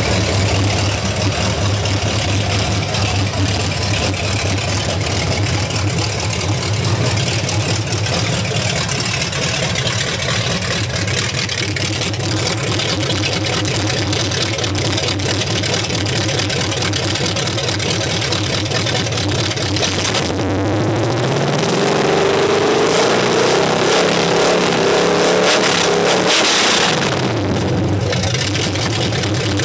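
Pontiac 400 V8, with ported high-compression #16 heads, running through open Hedman headers with no mufflers. It idles steadily, then about two-thirds of the way in it is revved up, held high for several seconds, and drops back to idle.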